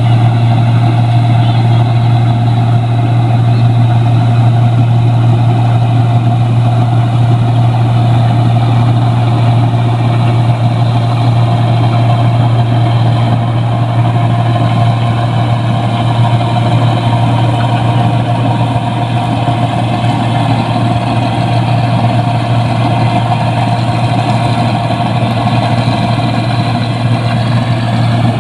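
Rice combine harvester running at a steady engine speed: a constant loud low hum with a steady higher tone over it, with no change in pitch.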